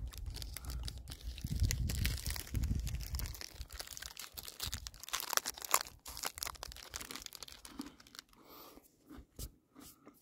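A snack bar's plastic wrapper crinkling and tearing open in a run of sharp crackles, with a low rumble of wind on the microphone over the first few seconds.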